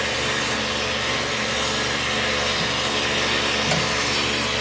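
Steady drone of running machinery: an even hiss with a constant low hum, unchanging throughout.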